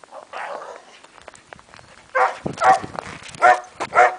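A dog barking four times in quick succession in the second half, after one softer, shorter call about half a second in.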